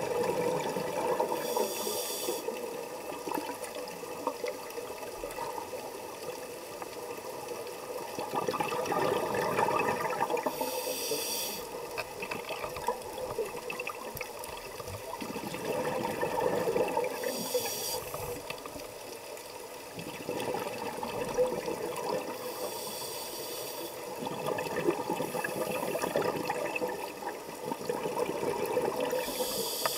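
A scuba diver's breathing through a regulator, heard underwater: a short hiss every six to nine seconds, with longer swells of bubbling water between them.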